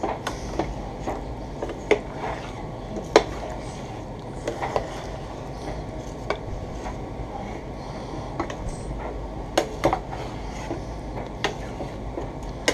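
Metal spoon stirring chicken pieces and onions in curry sauce inside a stainless steel stockpot, clinking and scraping against the pot's sides at irregular intervals. The loudest knock comes about three seconds in.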